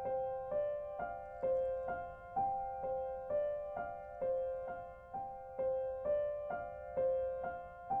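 Background piano music: evenly paced notes, about two a second, each ringing and fading before the next, over a repeated middle note.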